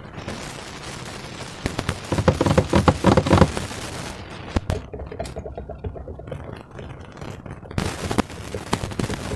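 Slime being squished and worked by hand, a dense run of wet crackles and small pops, loudest about two to three seconds in, with a few sharper single pops later.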